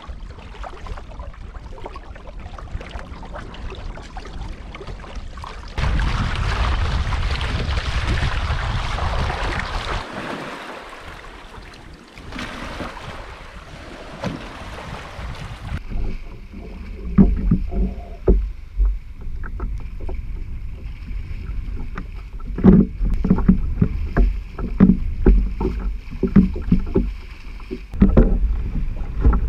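Wind and water rushing past a small wooden sailing canoe under way. About halfway through this gives way to irregular splashing as a person wades through shallow water towing the canoe on a line.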